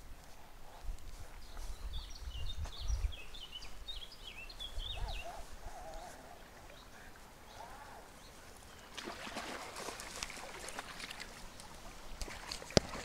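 Outdoor ambience with low wind rumble on the microphone and a small bird twittering quickly for a few seconds. Later come crunching, rustling steps on wet ground and gravel, with one sharp click near the end.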